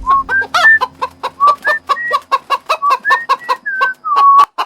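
Chicken clucking in a quick run of short clucks and higher cackling notes, cut off abruptly near the end.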